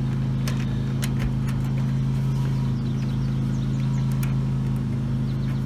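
A steady low mechanical drone, like a running motor, with a few light clicks and taps as a bent copper oil-pressure line and its compression fittings are handled.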